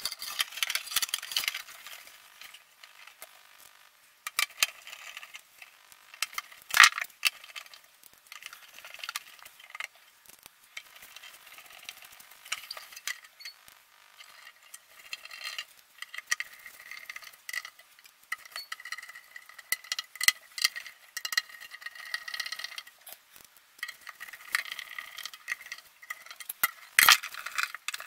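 Sheet-metal cover of a YiHua 853D hot air rework station being slid back on and screwed down: scraping, rattling and small metallic clinks of the cover, screws and screwdriver. The sharpest clicks come about seven seconds in and near the end.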